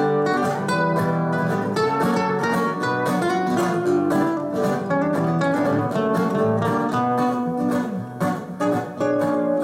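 Two acoustic guitars playing an instrumental break between sung verses: steady rhythmic strumming under a picked melody line.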